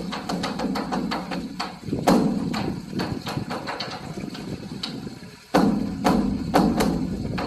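Buddhist temple dharma drum (beopgo) beaten with sticks in a fast, dense roll of strikes, with heavy accented beats about two seconds in and three more close together after a brief lull near the end.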